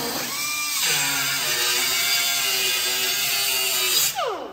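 Power tool cutting through a metal mounting bracket, running steadily with a dense hiss, then let off about four seconds in, its pitch falling quickly as it spins down.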